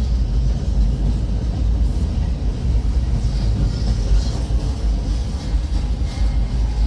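Long freight train's cars rolling past, a steady low rumble.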